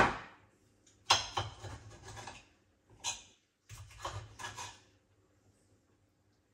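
Kitchen utensils being handled in a search for a knife: a sharp knock, then several bouts of clattering and rattling that stop about five seconds in.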